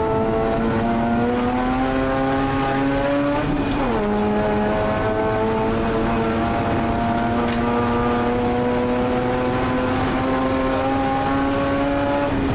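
Mazda RX-8 Cup race car's two-rotor rotary engine heard from inside the cabin at full throttle, with wind and road noise. The revs climb, drop quickly about four seconds in with an upshift, then climb slowly and steadily through the next gear.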